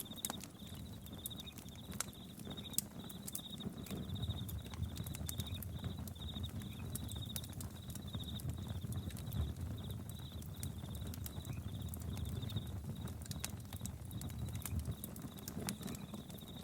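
Campfire crackling, with scattered sharp pops over a low rumble, while crickets chirp steadily in short repeated trills.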